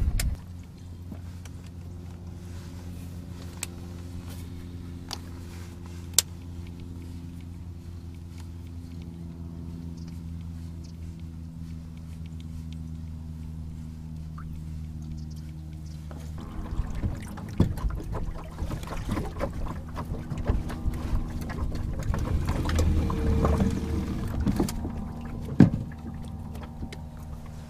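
Boat motor running with a steady, even hum. From about 16 seconds in, a louder rushing noise and scattered knocks join it.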